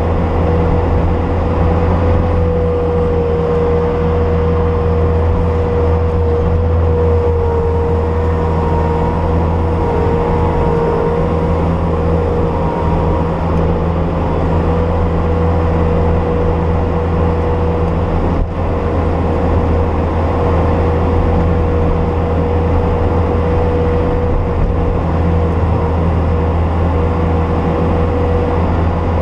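Bobcat S250 skid steer's diesel engine running steadily, with a constant whine above its low drone.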